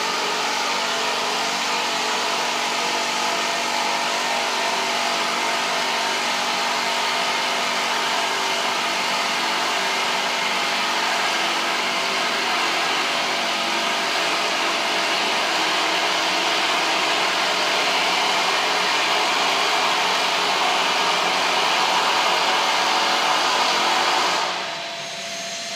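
Gekko InLine Spinner centrifugal gravity concentrator running in concentrating mode, its ribbed bowl spinning with slurry feeding in: a loud, steady whirring rush with several steady hum tones underneath. Near the end the rush drops off and a rising whine starts.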